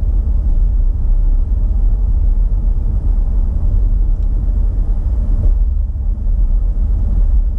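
Car driving along a road: steady low rumble of tyre and engine noise.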